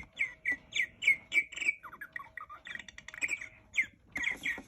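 Mark Feldstein Audubon singing bird clock playing its two o'clock bird, a recorded purple martin song: quick runs of chirps with some lower gurgling, gliding notes in the middle.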